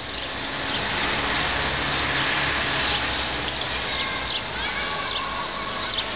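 Strong wind gust rushing, swelling about a second in and holding steady, with birds chirping through it and a low steady hum underneath.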